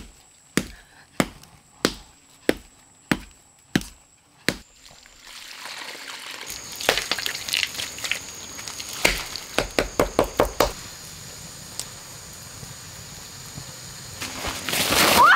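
Chopping strikes, about eight evenly spaced blows in the first four and a half seconds, followed by wet mud being slapped and pressed onto stones in a quick run of soft knocks. A steady high thin tone runs underneath, and a louder rising rush comes at the very end.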